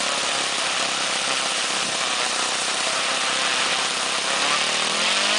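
Saito FG-20 single-cylinder four-stroke gasoline model-aircraft engine swinging a 16x6 propeller, idling steadily at low speed. Near the end it is throttled up, its pitch rising to a higher steady speed.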